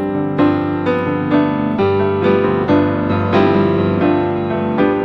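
Background music: piano playing a gentle melody, with a new note or chord about every half second.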